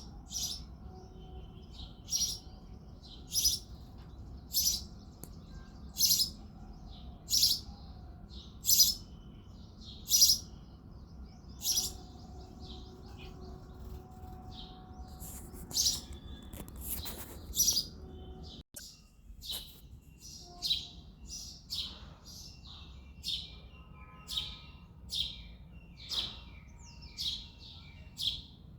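Male house sparrow chirping: a run of loud, sharp chirps about one every second and a half, a quick cluster of chirps a little past the middle, then after a brief break, faster and somewhat fainter chirps about one a second.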